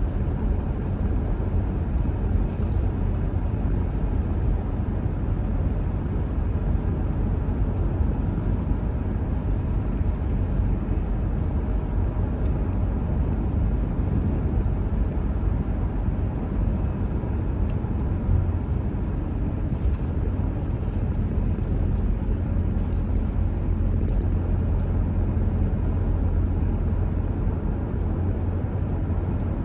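Car driving at a steady speed: an even, low rumble of road and engine noise.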